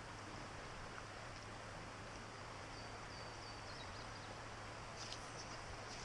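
Quiet creekside outdoor ambience: a steady faint hiss with faint high bird chirps in the middle and again near the end.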